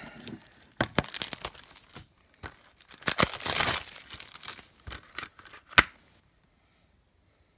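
Plastic shrink wrap being slit and torn off a Blu-ray keep case, crinkling and tearing in two bursts, the second one longer, then a single sharp click.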